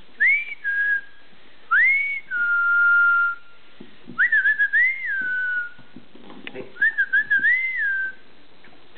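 A person whistling in four short phrases, each a clear tone that swoops up and then holds or slides back down, the second one held longest.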